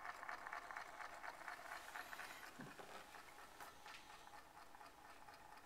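Faint, rapid ticking buzz from a homemade brushless DC motor, its six electromagnets switched in sequence to spin a rotor of stacked refrigerator magnets at full speed; it fades about halfway through.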